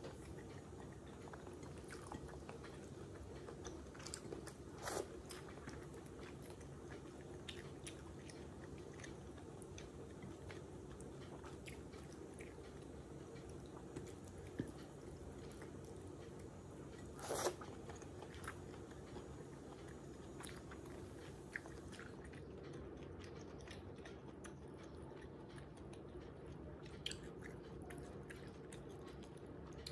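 Close-miked eating: chewing goat meat, offal and curried rice eaten by hand, with scattered crisp clicks and two louder crunches, one about five seconds in and one a little past halfway.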